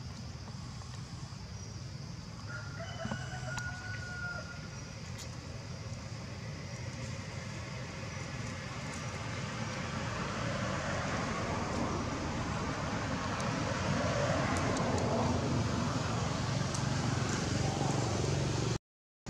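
A rooster crows once, a single drawn-out call about three seconds in, over a steady low hum. A broad rush of noise swells through the second half and is the loudest part. The sound cuts out briefly just before the end.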